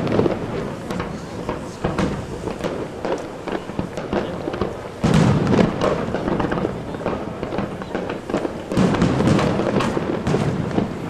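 Aerial firework shells bursting: sudden loud bangs about two, five and nine seconds in, with crackling and smaller pops between.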